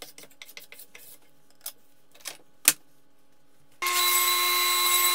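Quick short scraping strokes of a hand plane shaving a wood block, then a few knocks of wood on the bench. About four seconds in, a table saw comes in suddenly at full speed, running with a loud steady whine.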